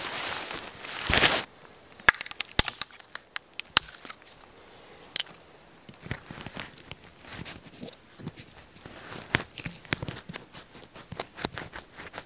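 Tarp fabric rustling as it is handled, then scattered sharp clicks and crackles of twigs and forest litter while a tarp corner is pegged into the ground with a wooden stick.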